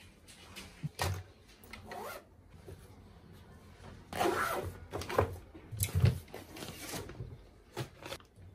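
Bags, bottles and toiletries being picked up and set down on a desk: irregular rustling and handling noise with several light knocks, busiest and loudest a little past the middle.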